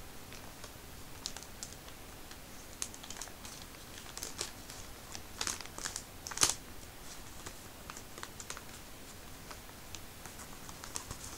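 Paper mailing envelope being torn open and handled, with irregular crackles and rustles of paper. The loudest burst of tearing comes about halfway through.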